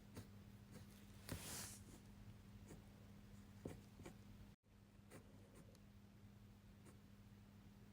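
Faint fineliner pen tip ticking and scratching on paper in short strokes and dots, with one longer scratchy stroke about a second and a half in.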